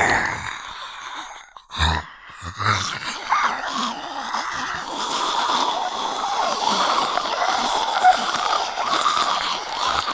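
Zombie voice sound effect: raspy, guttural growling and groaning. Two short low grunts come about two seconds in, followed by a long continuous rasping growl.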